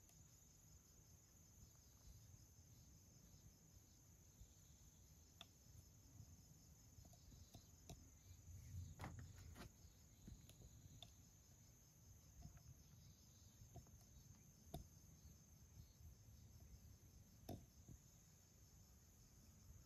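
Near silence: room tone with a faint, steady high-pitched trill, a few soft clicks, and a brief low rustle about nine seconds in.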